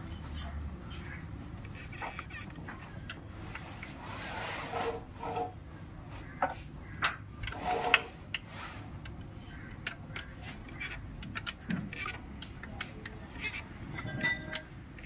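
Scattered metallic clicks and rasping scrapes as a VW Polo TDI engine is turned over by hand with a wrench after a timing belt change, to check that nothing strikes. Two sharper clicks, about a second apart, stand out halfway through.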